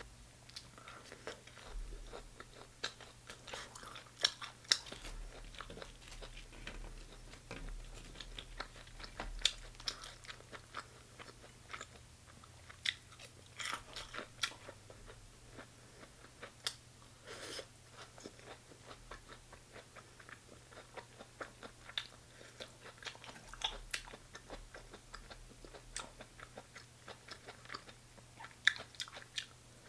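Close-miked chewing and biting of stir-fried chicken gizzards and onion, with many short, crunchy clicks throughout. A steady low hum runs underneath.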